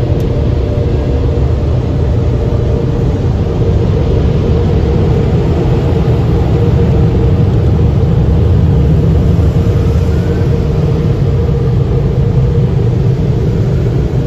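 Automatic car wash air-dryer blowers running, a loud, steady rushing rumble with a steady fan tone, heard from inside the car as it passes through the drying stage.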